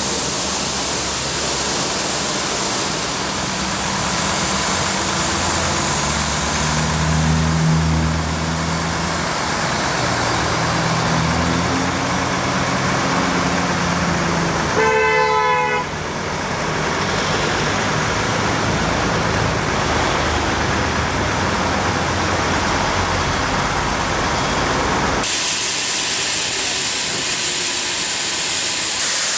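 Cappellotto CapStreet road vacuum truck working: a loud, steady rushing hiss from its suction and water spray, over engine tones that rise and fall in the first half. A passing vehicle's horn sounds briefly about halfway through, and the rushing sound changes character near the end.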